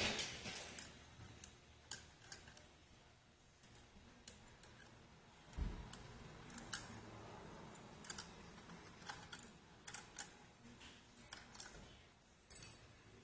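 Faint, irregular light clicks of small metal parts of a wind-up alarm clock being handled during disassembly, with one dull thump about five and a half seconds in.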